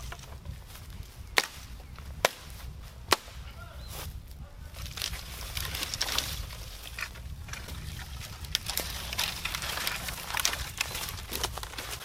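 Small axe striking dry deadwood: three sharp chops about a second apart, followed by several seconds of crackling and snapping of dry twigs and brush as the branches are broken and handled.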